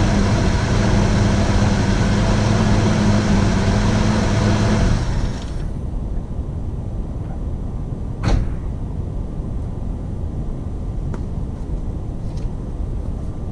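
1981 Jeep CJ7's engine idling steadily, then switched off about five seconds in, its running sound stopping abruptly. A single sharp knock follows a few seconds later.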